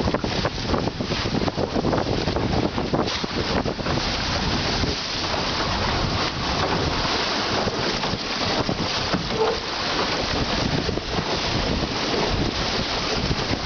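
Wind blowing hard across the microphone over the rush and slap of choppy water along the hull of a Drascombe Lugger under sail in a 10–15 knot breeze.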